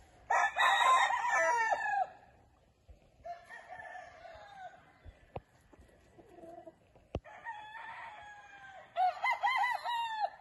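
Rooster crowing: a loud crow right at the start and another near the end, with fainter calls between. Two brief sharp clicks come in the middle.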